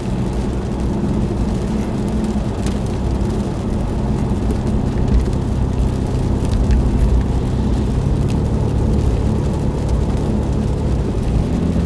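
Car driving along a road, heard from inside the cabin: a steady engine hum with road and tyre noise, the engine tone shifting slightly about eight seconds in.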